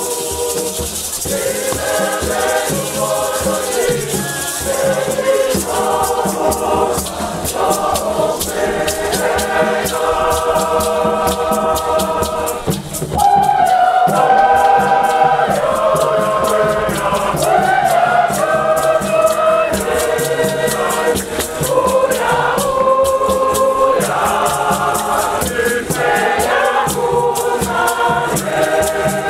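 A choir singing a hymn together in harmony, backed by a steady beat of shaken rattles and hand clapping; the singing swells louder about thirteen seconds in.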